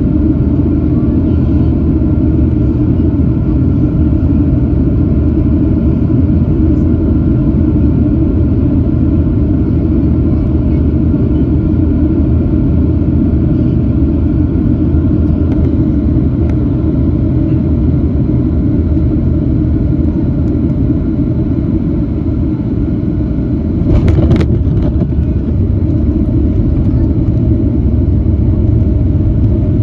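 Cabin noise of a Boeing 757-300 on final approach: a loud, steady rumble of engines and airflow. About 24 seconds in comes a brief jolt and rattle, followed by a heavier low rumble: the main wheels touching down and rolling on the runway.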